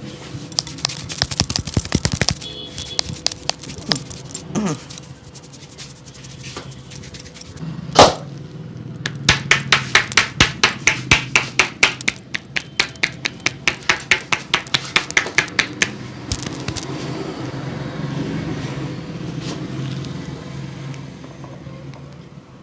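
Massage hand strikes: a barber's hands slapping and tapping on a customer's body in a quick flurry, then one loud slap about eight seconds in, then a steady run of about three slaps a second that stops after about seven seconds. A low hum of street traffic runs underneath.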